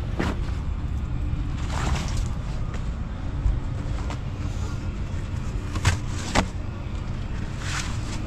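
Canvas deck covers being pulled off and folded by hand, giving short rustles and a few sharp knocks, over a steady low rumble.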